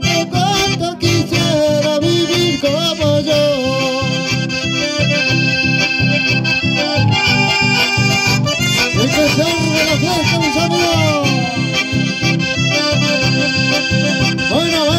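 Accordion-led dance music with a steady bass beat and a gliding melody line.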